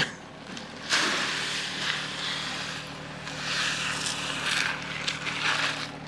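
Pelleted lime pouring from a bag into the plastic hopper of a broadcast spreader, a rushing hiss that starts about a second in after a knock, with a tractor engine idling steadily underneath.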